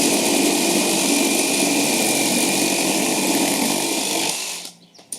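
A Makita JR002G 40V and a HiKOKI CR36DA 36V cordless reciprocating saw running flat out through a cut at the same time. They stop about four and a half seconds in as the cuts finish.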